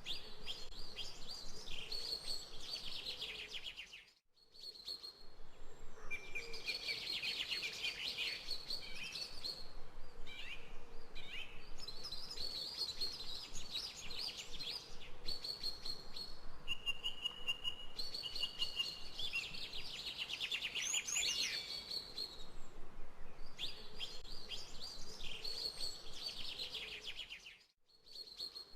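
Songbirds chirping and singing, many quick overlapping calls and trills. The sound drops out briefly about four seconds in and again near the end.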